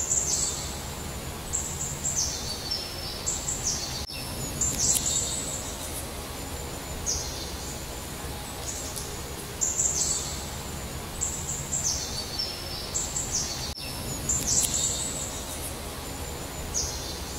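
A songbird singing a high phrase of several notes that step downward in pitch, repeated again and again, over a steady low outdoor background hum.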